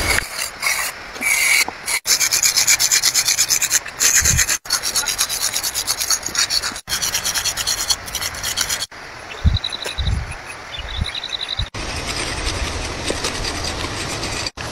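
Chalk rubbed and scraped on a concrete road surface in quick back-and-forth strokes, shading a drawing. The scraping runs in rapid bursts of several strokes a second and breaks off abruptly every two or three seconds.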